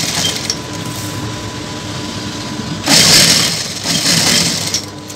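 JACK industrial sewing machine running, with two louder spells of stitching about three and four seconds in.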